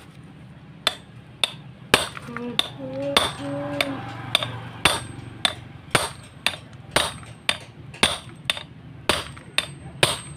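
Hammer blows on a steel drift set in the valve guide of a small motorcycle's aluminium cylinder head, driving the guide out. Sharp metallic strikes come about twice a second, starting about a second in.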